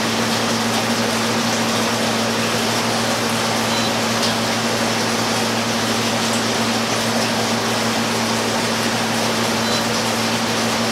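Blichmann RipTide brewing pump running with its speed control turned all the way up, circulating water, mixed with the running of a chiller: a steady, loud mechanical noise with a low hum that does not change.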